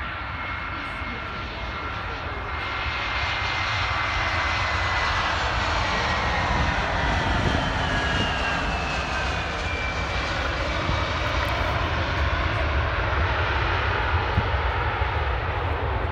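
Jet airliner's engines running as it passes, growing louder over the first few seconds and then holding steady, with a high whine that glides slowly down in pitch.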